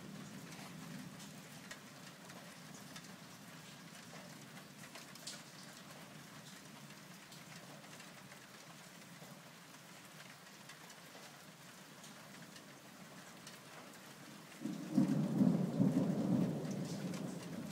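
Steady rain falling, with scattered drops ticking close by. Near the end a sudden low rumble of thunder comes in, the loudest sound, and lasts about three seconds.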